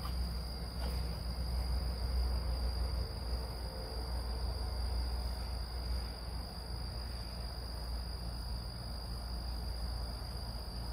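Crickets singing in a steady high-pitched chorus over a steady low rumble.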